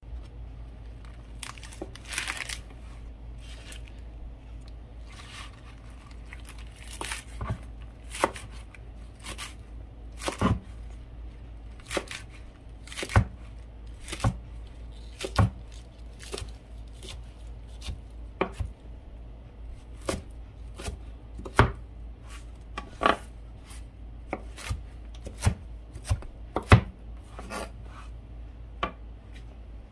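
Cold Steel Kitchen Classic slicer chopping Swiss chard on a cutting board: a long series of separate, crisp chops, the blade knocking the board roughly once a second at an uneven pace. There is a short stretch of leaf rustling about two seconds in.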